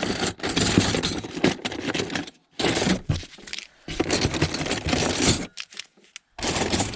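Metal kitchen utensils, mostly stainless steel, clattering and scraping against each other as they are rummaged through and sorted by hand, in several stretches broken by short pauses.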